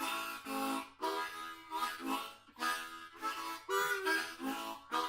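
Background music: a harmonica playing a tune in short phrases of chords, the notes changing about every half second.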